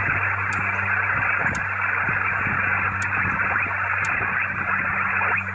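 Static hiss from a Yaesu FT-891 HF transceiver's speaker on the 20-metre band, with no station coming through, over a steady low hum and a few faint clicks.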